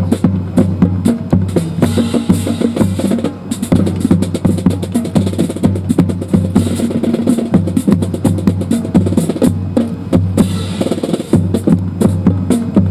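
Accompaniment music for a rifle drill routine: heavy drums and percussion over a held bass line, with sharp hits coming fast.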